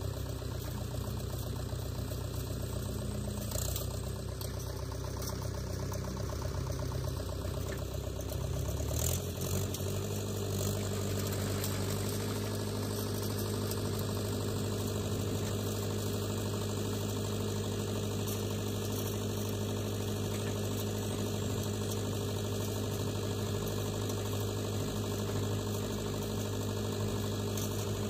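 Diesel engines of a tractor stuck in deep mud and a JCB backhoe loader running steadily. About nine seconds in the engine note changes to a steadier, slightly higher hum.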